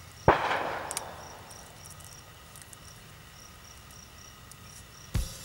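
A single sharp crack from a compound bow shot a third of a second in, its noise fading away over about a second. Crickets chirp behind it in short, evenly spaced high pulses.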